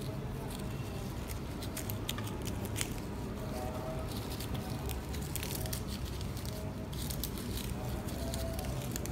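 Faint rustling and crinkling of disposable plastic gloves handling a muslin cloth as it is twisted and knotted into a spice bundle, with a few light clicks over low steady room noise.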